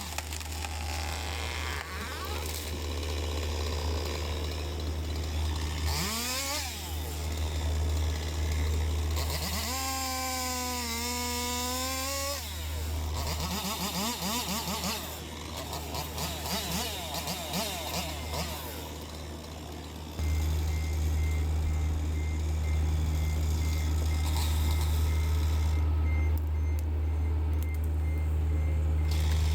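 John Deere 60G mini excavator's Yanmar diesel engine running steadily, with several rising and falling whines over it. The engine gets louder about two-thirds of the way through.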